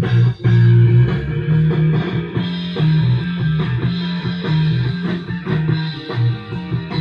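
Country rock played by a band on electric lead guitar, bass guitar and drum kit, with a steady beat and a prominent bass line.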